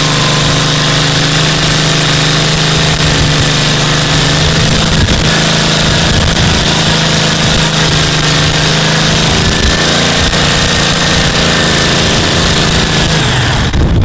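Mini bike's 14 hp Briggs & Stratton V-twin engine running hard and steady during a burnout, with the rear tire spinning on concrete and a loud tire-scrub hiss over the engine.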